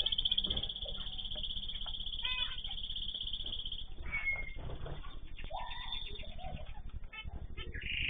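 Mixed calls of small cage birds in an aviary, zebra finches among them: a continuous high trill for the first half, then scattered short calls and chirps.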